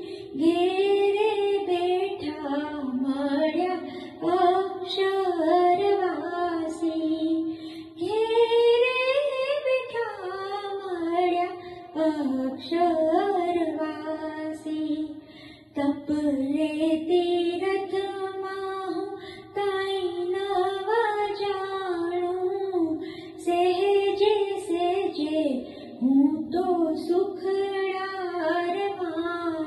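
A woman singing a Gujarati devotional song solo, in melodic phrases of a few seconds each with short breaths between them.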